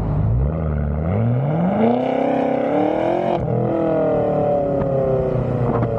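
Car engine accelerating: a low rumble gives way to engine revs climbing steadily for about three seconds, then the pitch drops sharply at a gear change and falls slowly as the car eases off.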